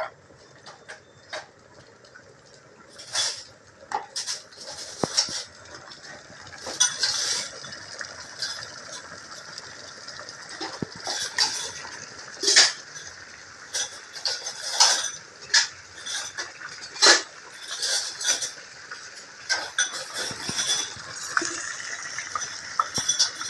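Tuna steaks frying in oil in a pan: a steady high sizzle with many sharp, irregular pops and clicks, the sizzle growing denser in the second half.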